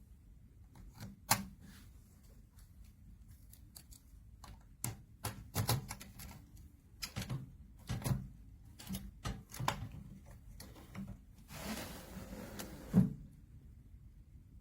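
Irregular clicks and light knocks from a small steel lock box being handled. Near the end comes a short scraping rustle that ends in a sharper knock.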